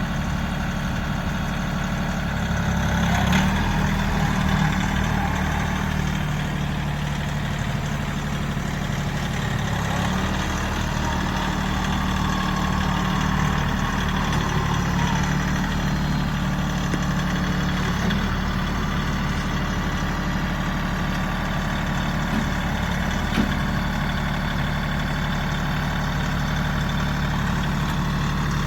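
Kioti tractor-backhoe's diesel engine running steadily, with the engine note shifting a little a few seconds in and again about ten seconds in, and a few light knocks.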